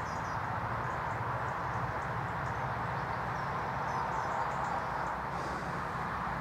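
Steady outdoor background noise with a faint low hum, and a few faint, brief bird chirps.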